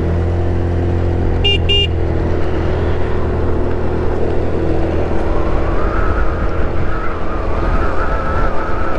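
GY6 scooter running on the road, a steady low drone with wind on the microphone. Two short high beeps come about a second and a half in. About halfway through, a higher whine sets in and holds.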